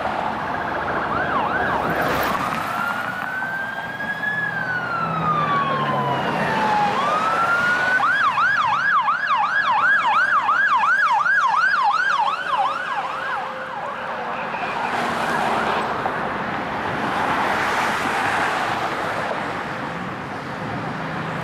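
Emergency vehicle's electronic siren: a wail that rises slowly and falls, then switches to a fast yelp of about two and a half sweeps a second, over the noise of passing traffic.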